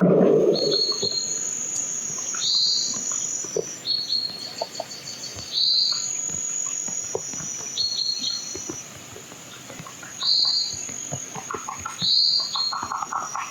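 Outdoor nature ambience: insects trilling steadily while a bird repeats a short call about every two seconds.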